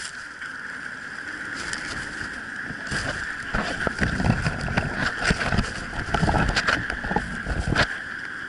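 Blizzard wind rushing and buffeting the microphone, with a steady hiss throughout. It gets rougher in gusts from about three and a half seconds in until near the end.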